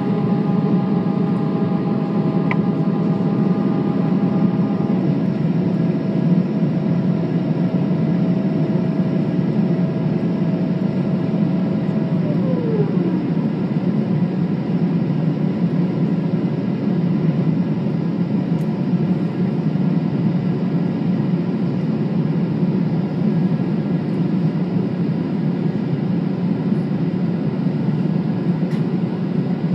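Steady cabin noise of a Boeing 777-300ER on approach, heard inside the cabin by the wing, a low rush with its GE90 engines beneath it. Thin whining tones sit over it at first, and the last of them slides down in pitch about 13 seconds in.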